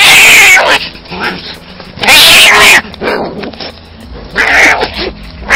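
Two cats fighting, screeching in loud bursts: one long screech at the start, another about two seconds in, and a shorter, weaker one near the end.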